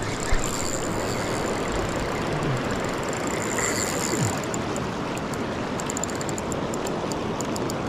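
River water rushing steadily, with faint light clicks in the second half.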